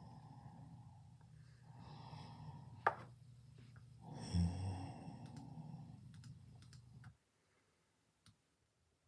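A person snoring: one long, low snore that stops about seven seconds in, with a sharp click about three seconds in.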